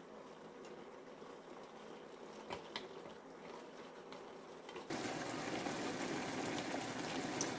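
Blue crabs in coconut milk simmering and bubbling in a frying pan, with two light knocks of a wooden spoon against the pan. The bubbling becomes suddenly louder about five seconds in.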